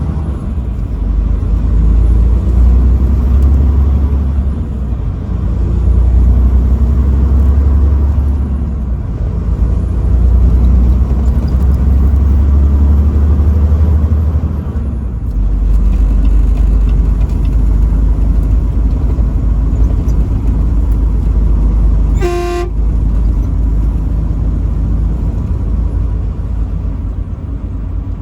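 Truck driving on the highway: a steady low engine and road rumble that swells and eases. One short horn blast, about half a second long, comes about three-quarters of the way through.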